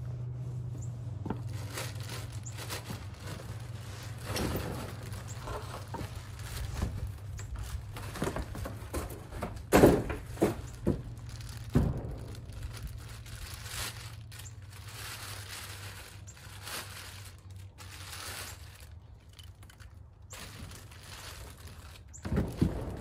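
Packaging being handled as a heavy electric winch is unboxed: plastic wrapping rustling and crinkling and cardboard scraping in many short bursts, with two heavy thunks about ten and twelve seconds in. A steady low hum runs underneath.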